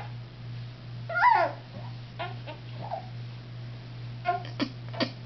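A baby babbling: a high squealing coo that slides down in pitch about a second in, a few softer short babbles after it, then a few short clicks near the end, over a steady low hum.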